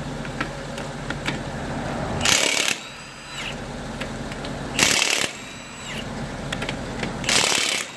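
Milwaukee M18 1/2-inch cordless impact wrench hammering lug nuts off a truck wheel. There are three short bursts about two and a half seconds apart, each followed by the motor winding down, as the nuts come off easily.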